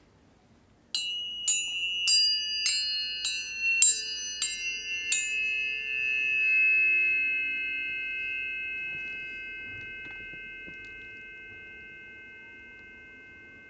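Metal tuning forks struck about eight times in quick succession, starting about a second in. Their clear high tones overlap, then ring on and slowly fade away.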